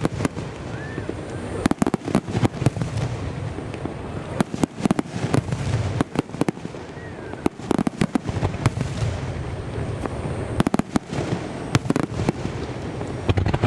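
Aerial fireworks shells bursting in a rapid star mine barrage: many sharp bangs in quick succession, coming in dense clusters.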